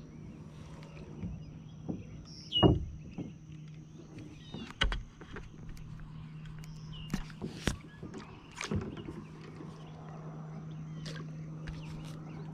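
Scattered clicks and knocks of a baitcasting rod and reel being handled in a plastic kayak, the loudest a sharp knock about two and a half seconds in, over a steady low hum.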